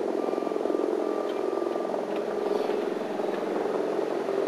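An engine running steadily with a fast, even throb, and a faint steady whine above it.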